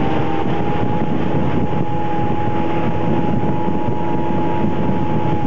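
Motorboat engine running steadily at speed, a held whine over the rush of wind and water.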